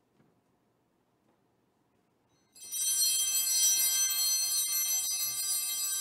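Small bells ringing, a bright, high, shimmering jingle that starts suddenly about two and a half seconds in after a near-silent pause and keeps ringing steadily.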